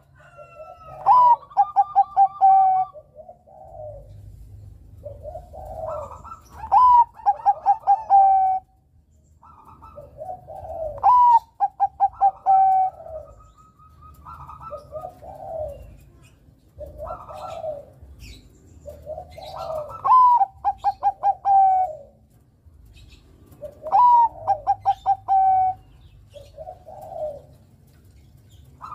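Bangkok-type zebra dove (perkutut) singing its cooing song. It repeats a phrase every four or five seconds: a quick run of short coos, then a longer pulsing held note.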